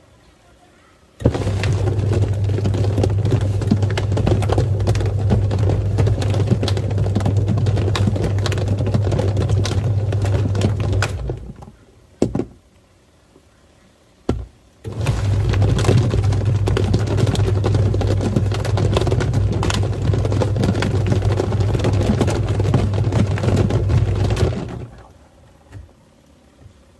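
Twin-tub washing machine's wash motor running with a steady low hum, its tub churning water and foam while toy ducks knock and rattle inside. It runs for about ten seconds, stops for a few seconds with a couple of lone knocks, then runs again for another ten seconds before stopping, the usual stop-and-reverse of a wash cycle.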